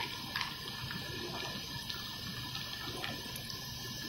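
Steady rushing hiss of molten metal pouring from a bottom pouring ladle's nozzle into a mould, with a couple of sharp ticks.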